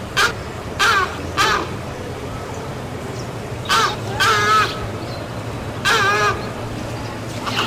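Heron squawking: about seven harsh, croaking calls, some short and a few longer with a wavering pitch, spaced a second or two apart.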